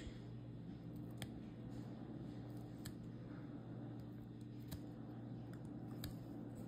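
A few faint, sharp clicks, about four spread over several seconds, as a seam ripper picks and snaps threads out of a woven dish towel, over a steady low hum.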